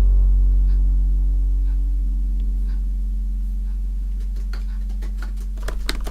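A low, sustained gong-like music drone slowly fading, with faint scattered ticks, then typewriter keys starting to clack in quick strokes near the end.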